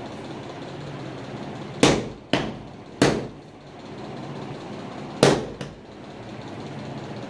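Sharp knocks on freshly laid ceramic floor tiles as the tiler taps them down to bed them: three close together about two seconds in and one more about five seconds in, over a steady background hum.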